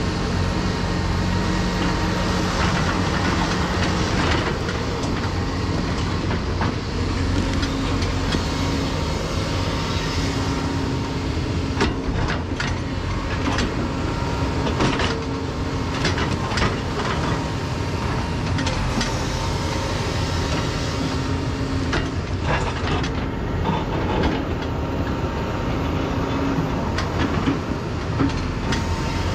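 Caterpillar 336E excavator's diesel engine running steadily under load as its Bedrock rock rake drags through boulders, with clusters of sharp clanks and knocks of rock on steel through the middle and again about three-quarters of the way through.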